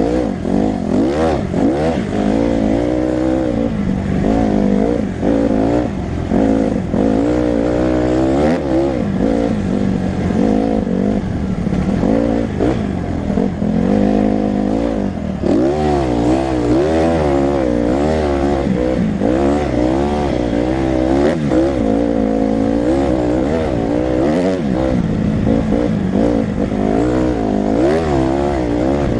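Honda CRF150R dirt bike's four-stroke single-cylinder engine being ridden hard, its pitch rising and falling over and over with the throttle and gear changes, heard close up from the rider's helmet.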